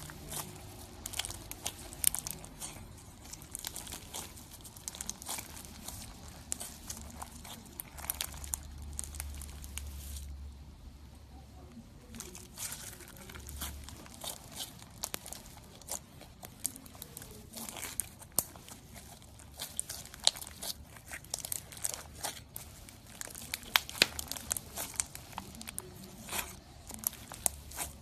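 Hands squeezing and pressing slime packed with clear plastic beads, giving dense crunchy crackling and popping clicks. The crackle eases off briefly about ten seconds in, then resumes.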